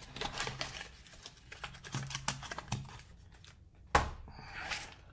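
Boxes of shotgun shells being handled and moved off a table: rustling and scattered light clicks, with a sharp knock about four seconds in as something is set down.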